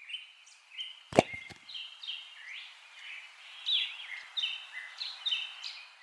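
Birds calling: a run of short chirps and quick rising and falling whistled notes over a steady hiss, with two sharp knocks a little over a second in.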